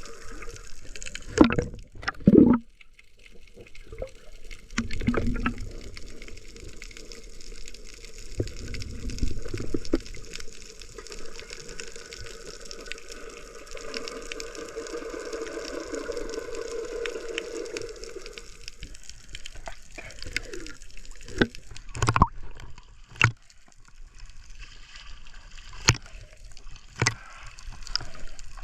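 Water sloshing and gurgling right against a GoPro camera in the sea, with low rushing swells and several sharp knocks or splashes.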